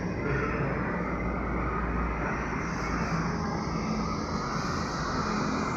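A steady low rumbling noise with no clear pitch.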